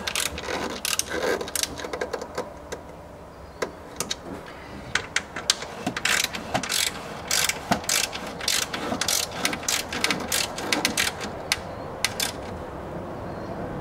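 Hand ratchet clicking in short irregular runs as a fastener on the rear strut support brace is snugged down, the clicks coming thicker after the first few seconds.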